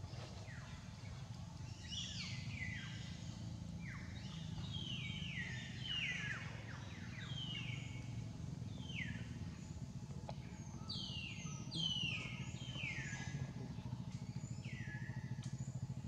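Birds calling in short, steeply falling whistled notes, many of them overlapping one another, over a steady low rumble.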